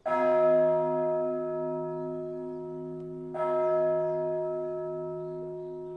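A large bell struck twice, about three and a half seconds apart. Each stroke rings on with a low hum that throbs slowly and fades gradually.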